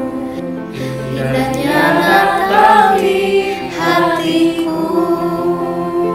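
Mixed choir of young voices singing in harmony, swelling to its loudest around the middle and easing off toward the end.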